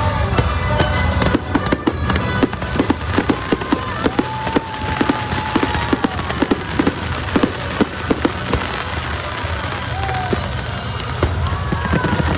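Fireworks exploding in a rapid run of sharp crackles and pops, several a second, with loud music and a heavy bass playing underneath.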